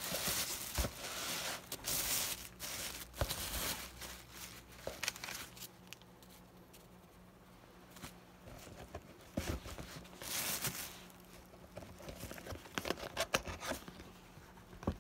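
Thin plastic carrier bag crinkling and rustling as a cardboard takeout box is pulled out of it and handled, coming in bursts that are loudest in the first few seconds and again about ten seconds in, with a few short taps and scrapes of cardboard.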